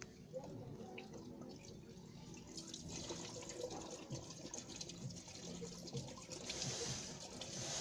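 Fluid draining from the vehicle's underside during an oil change, trickling and splashing into a catch container. The trickle swells louder near the end, with a few light clicks of a tool.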